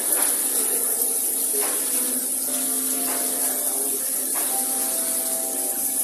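A steady high hiss with soft held musical tones over it that change pitch every second or two.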